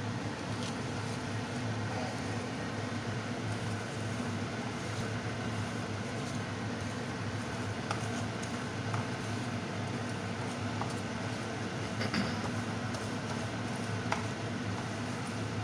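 A steady mechanical hum, with the light scraping and a few taps of a wooden spatula stirring semolina in a non-stick pan.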